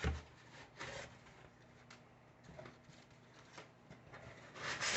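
Flat wooden kit pieces being handled and set down: a soft thump at the start, a few faint rustles and taps, then a louder rubbing slide near the end.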